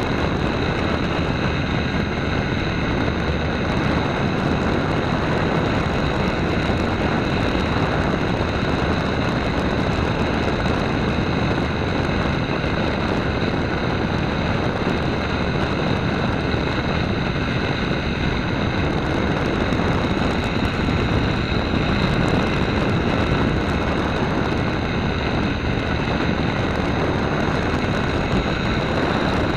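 Small radio-controlled model airplane's motor and propeller running steadily in flight, heard from a camera mounted on the plane: a steady high whine over a continuous rush of air.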